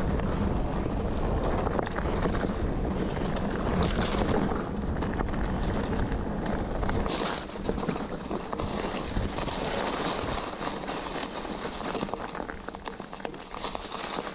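Wind buffeting the camera microphone as a mountain bike rolls downhill over rough, rocky ground, with many small knocks and rattles. The low wind rumble is strongest in the first half and eases after about seven seconds.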